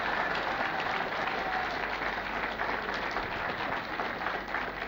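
Audience applauding, a dense steady patter of clapping hands.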